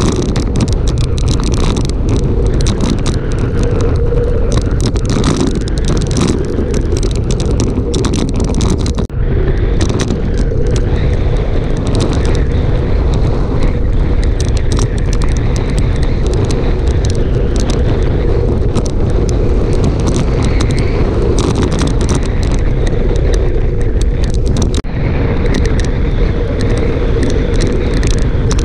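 Wind buffeting a moving camera's microphone on a fast downhill ride, a loud, steady rush with many small knocks from the rough pavement. It drops out briefly twice.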